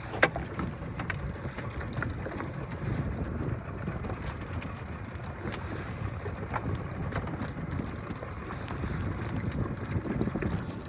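Boat at sea: a steady low rumble of wind and water, with scattered knocks and clicks and one sharp knock just after the start.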